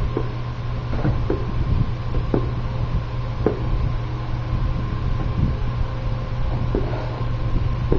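A steady low hum with a faint steady high tone over it, broken by scattered short clicks and knocks, about one every second or so.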